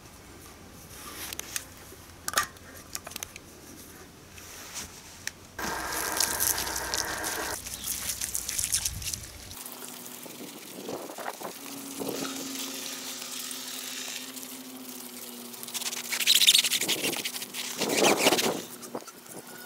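Water from a garden hose splashing and running over a car wheel while it is scrubbed by hand with a soapy cloth, with two loud splashes near the end. A faint steady hum lies beneath.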